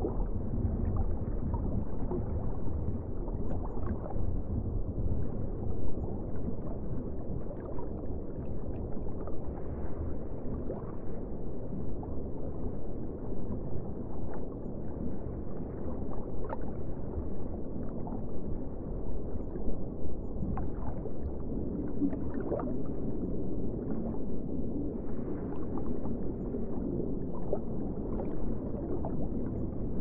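Underwater ambience: a steady, muffled low rumble of water, dull with nothing bright in it, with faint scattered bubbling and gurgles.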